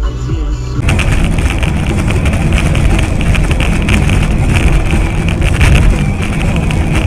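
A vehicle's engine and road noise while moving, with wind buffeting the microphone. Electronic background music cuts off about a second in.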